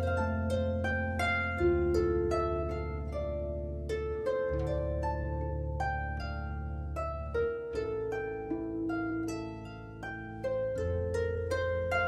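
Slow music with a plucked-string, harp-like melody: a steady run of plucked notes ringing over held low bass notes that change every few seconds.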